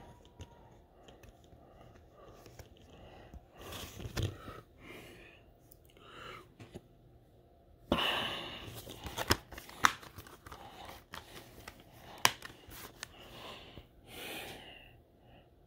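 A plastic Blu-ray case being handled, closed and turned over: scattered rustling with a few sharp plastic clicks, most of them about eight to twelve seconds in.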